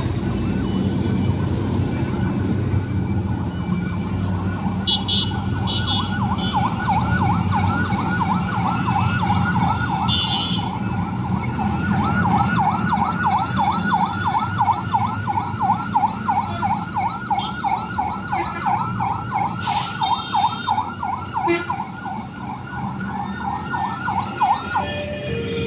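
Electronic yelp siren wailing rapidly, about four up-and-down sweeps a second, over the steady rumble of street traffic. It cuts off abruptly near the end.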